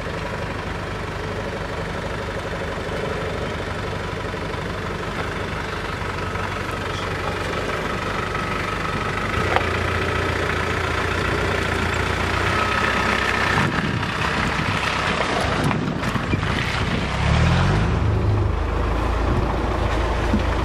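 Land Rover engine running at low revs as the 4x4 crawls down a rocky, rutted off-road track, growing louder about halfway through and briefly picking up revs near the end.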